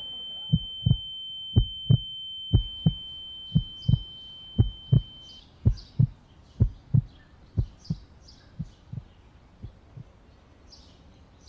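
Heartbeat sound effect: pairs of low thumps, about one pair a second, growing gradually quieter. A steady high ringing tone cuts off about five seconds in, and birds chirp after that.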